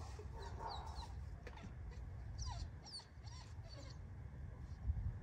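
An American bully puppy whimpering in short, thin, high-pitched cries. Wind buffets the microphone with a low rumble throughout, and a stronger gust comes near the end.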